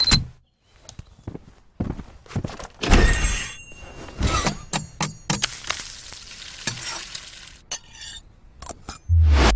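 Cartoon sound effects. An alarm clock's ringing is cut off by a slap at the start. A run of knocks, clinks and clatter follows, with a stretch of hissing in the middle and a short low buzz near the end.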